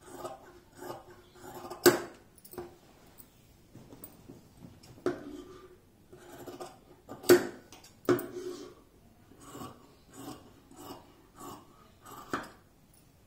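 Large tailor's shears cutting through cotton cloth, a run of snips about two a second, with a few sharper, louder clicks of the blades.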